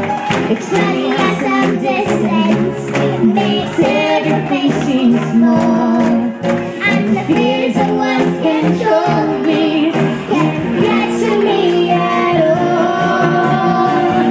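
A young girl singing into a microphone, amplified through a PA speaker, over instrumental backing music with a beat.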